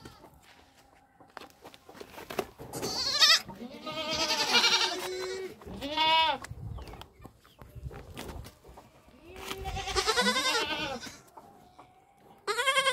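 Young goats bleating about five times. Some calls are short and some are long and wavering.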